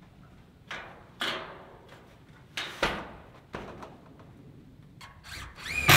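A long steel siding panel being handled and pressed against the wall, giving about five sharp metallic knocks and flexing pops. Right at the end a motor whirs up in rising pitch.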